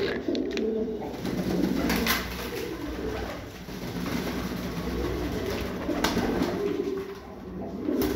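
A group of domestic pigeons, fantails among them, cooing over and over in low rolling calls, the sound echoing off a small tiled room.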